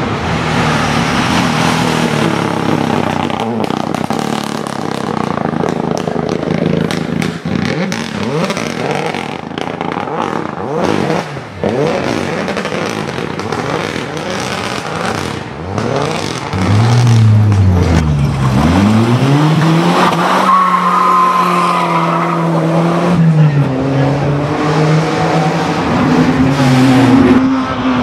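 Rally cars passing flat out, engines revving hard through gear changes. Partway through, the revs drop sharply and climb straight back up as a car brakes and accelerates away, then hold high and steady.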